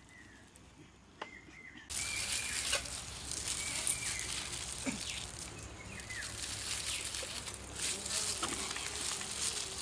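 Steady buzzing of insects starting about two seconds in, with a few short bird chirps and occasional light clicks.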